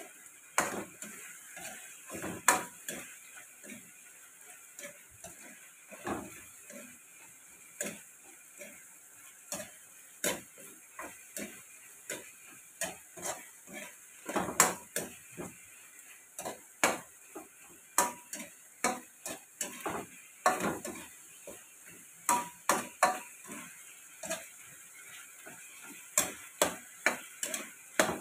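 Metal ladle scraping and knocking against a wok as chicken is stirred in its bubbling cooking liquid, with a faint sizzle underneath. The strokes come irregularly, one every half second to a couple of seconds.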